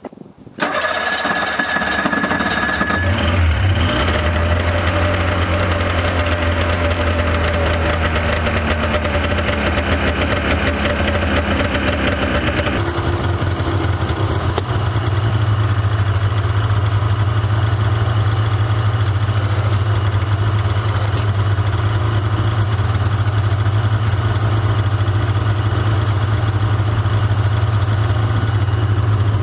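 Snowmobile engine idling steadily close by, a continuous low hum whose note steps up slightly about halfway through.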